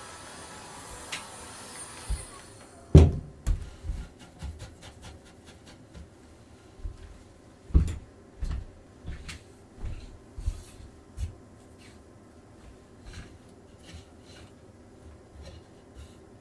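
A steady rushing noise cuts off about two and a half seconds in, followed by a run of knocks, thumps and small clicks, the loudest about three and about eight seconds in, as tools and materials are handled on a work surface during silkscreen printing work.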